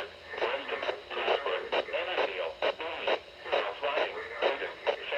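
A voice talking through a small radio's speaker, thin and narrow-sounding with no bass, in continuous speech.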